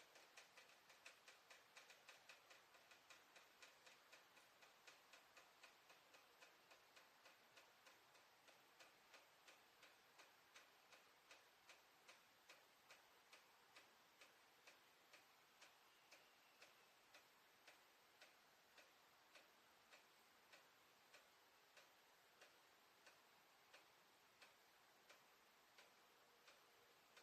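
Faint, regular ticking from inside the plumbing shaft above a bathroom ceiling, about three ticks a second at first, slowing to about two a second. The ticking goes on all day even when no water is being used, and no dripping or seepage is visible through the access hatch, so its cause is unknown.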